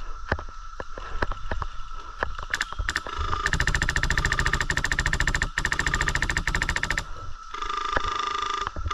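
Airsoft rifle firing on full auto: a fast, even rattle of shots in two long bursts about three and a half seconds in, broken briefly in the middle, after a few scattered single cracks.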